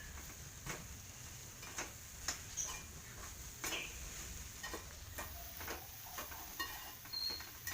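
A spoon knocking and scraping against a cheenachatti (Indian wok) while a thick filling of cooked green gram, grated coconut and sugar is stirred over the heat: faint, irregular light clicks about one or two a second.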